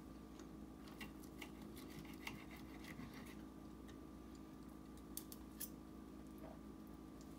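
Knife and fork faintly scraping and clicking on a ceramic plate while cutting cooked calf liver, a few light ticks scattered through, the sharpest about five seconds in, over a steady faint hum.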